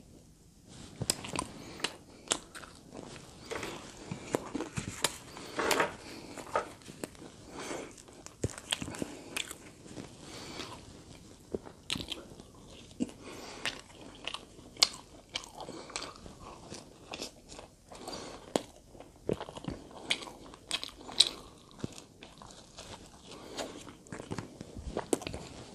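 Close-miked chewing and biting of thin-crust chicken pizza, the crisp crust crunching between the teeth in many irregular cracks.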